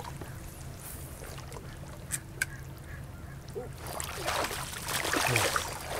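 Water splashing and slapping at the creek surface as a hooked brown trout strikes the hopper fly and thrashes, starting about four seconds in.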